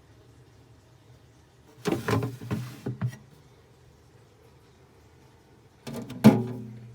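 Refrigerator door and its contents being handled: two short bursts of knocks and rattles, about two seconds in and again near the end, over a low steady hum.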